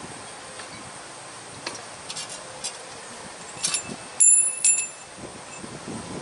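Steel brake hardware on a truck's S-cam brake being handled and fitted: a few light metallic clicks, then about four seconds in two brief bell-like rings of steel parts striking each other.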